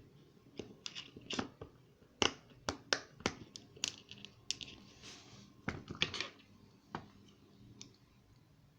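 Silicone pop-it fidget toy bubbles being pressed with the fingers: a run of irregular, quick popping clicks.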